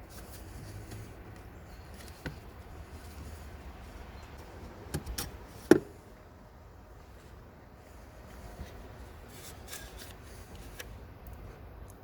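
Mercedes OM651 four-cylinder diesel idling steadily, with a few sharp clicks and knocks midway, the loudest a single knock just under six seconds in.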